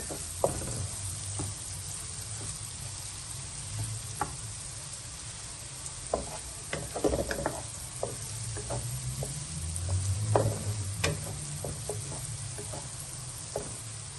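Diced onion sizzling in butter in a nonstick wok, stirred with a wooden spatula that scrapes and taps irregularly against the pan.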